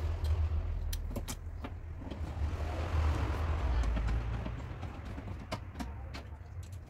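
Steady low rumble with scattered light clicks and taps of hand tools on a stripped steel car door, as the window regulator inside is worked on.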